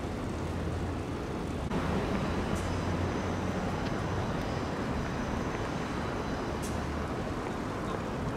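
City street ambience of road traffic: a steady low engine hum under a general traffic noise, with a faint high whine from about two and a half to six and a half seconds in.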